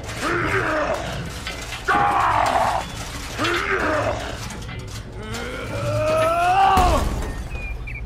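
A deep, gruff cartoon Hulk voice groaning and growling with effort, four strained sounds, the last one longer and rising before it falls away.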